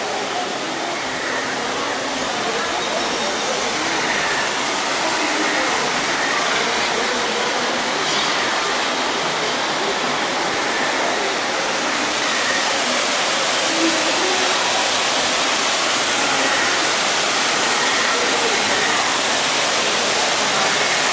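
Steady rush of water pouring down artificial rock waterfalls, a little louder about halfway through, with crowd chatter underneath.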